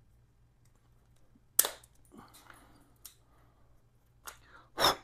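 Scissors snipping through the plastic tip of a gear-oil bottle's flex nozzle, one sharp snap about one and a half seconds in, followed by light plastic clicks and handling and another sharp crack near the end.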